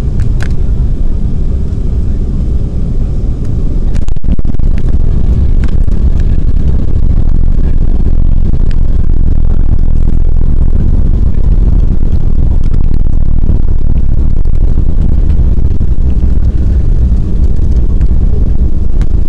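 Jet airliner landing, heard from inside the cabin: a steady low roar, a sharp thump about four seconds in as the wheels meet the runway, then a louder steady roar as the plane decelerates down the runway with its spoilers raised.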